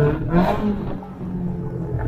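Motorcycle engine of a sidecar outfit coming off the throttle: the steady pulling note drops away, gives a short rising rev about half a second in, then runs quieter at low load.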